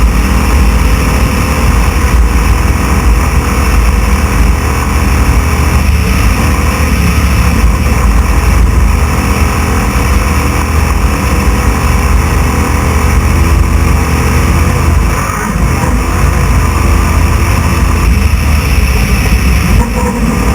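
Off-road race truck's engine running hard at speed, heard from on board, loud and steady with a heavy low rumble. The level dips briefly about 15 seconds in.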